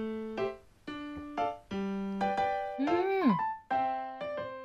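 Light background music of single piano-like keyboard notes, about two a second, each ringing and fading. Just before three seconds in, a short sound slides up in pitch and then falls away over the music.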